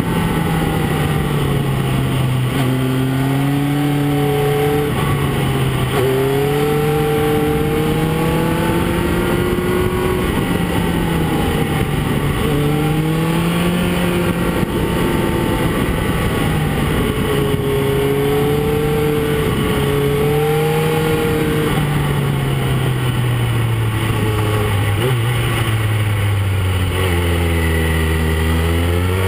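Motorcycle engine pulling up a winding mountain road, its note rising and falling every few seconds as the throttle opens and closes through the bends. Near the end the note drops to its lowest as the bike slows, then starts to climb again.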